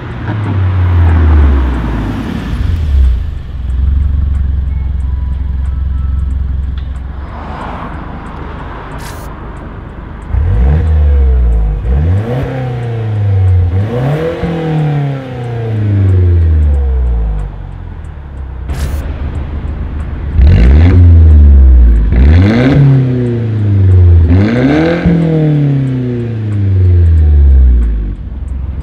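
Mercedes-Benz C200 with an Armytrix valvetronic exhaust (front-pipe, Y-pipe, valved muffler, quad tips). The car drives past with its engine note falling, then idles and is revved in three short blips. After a brief idle it is revved three more times, louder, and settles back to idle near the end.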